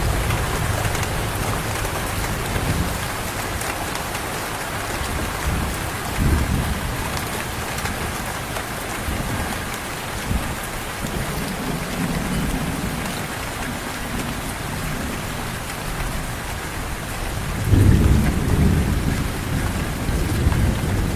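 Heavy rain falling steadily, with low rolls of thunder rumbling under it several times; the loudest roll comes near the end.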